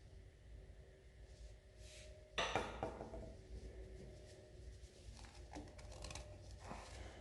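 A metal engine part clanks against metal about two and a half seconds in, ringing briefly, followed by a few light clicks and taps as parts are handled.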